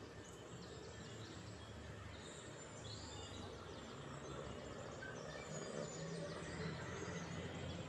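Small birds chirping and giving rapid high trills again and again over steady outdoor background noise with a low hum.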